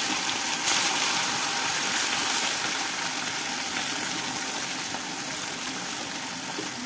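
Small whole fish frying in hot oil in an iron kadhai: a loud, steady sizzle that gradually eases off.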